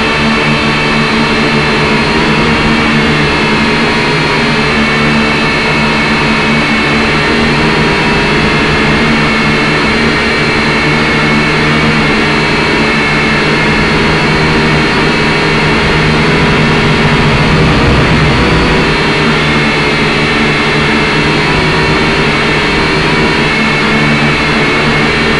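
Syma X5C quadcopter's four small motors and propellers whining steadily in flight, loud and close through the drone's onboard camera microphone. Several tones run together, some wavering slightly as the throttle shifts.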